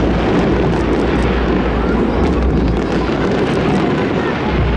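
New Year's Eve fireworks display: a steady, loud rumble of many overlapping shell bursts with short crackles scattered through it.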